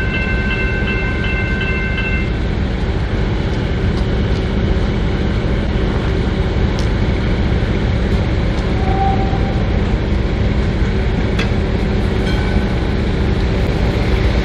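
Electronic level-crossing warning bells ringing in a rapid pulse, then stopping about two seconds in as the crossing clears. A steady low train rumble runs underneath throughout.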